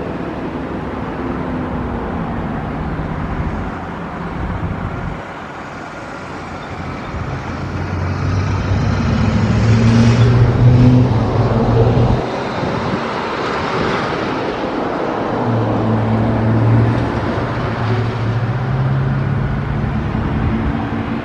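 Road traffic: motor vehicles passing steadily, with two louder passes, one building to a peak near the middle and another a few seconds later.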